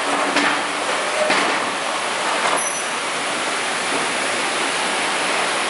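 Steady mechanical noise of machinery running, with a few light clicks and taps from thread parts being handled at the sewing machine.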